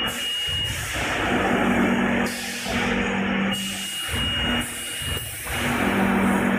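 HSHZD-600C bag-in-box bag-making machine running: a steady machine hum with a hiss that switches on and off every second or two as it cycles through sealing and cutting bags.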